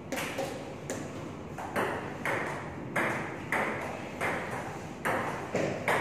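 Table tennis rally: a celluloid ball clicking sharply off paddles and the tabletop, about nine hits at an even pace of a bit more than one a second.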